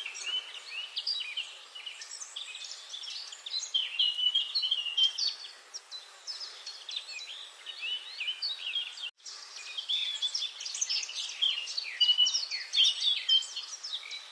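Many small birds chirping and twittering at once, a dense chorus of short overlapping chirps, with a momentary cut-out about nine seconds in.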